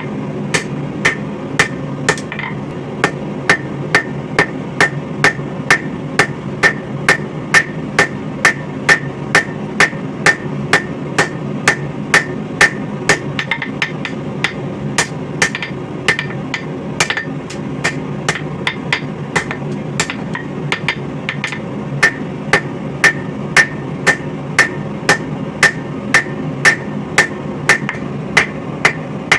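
Hand hammer striking hot coil-spring steel on an anvil, hand-forging a knife blade: a steady run of blows at about two a second, many with a short metallic ring, over a steady low rumble.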